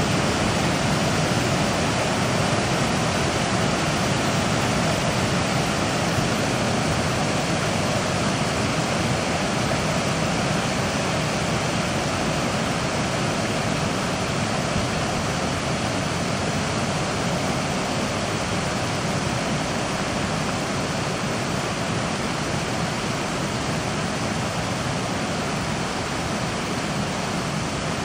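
Steady rushing of muddy flash-flood water surging down a creek channel.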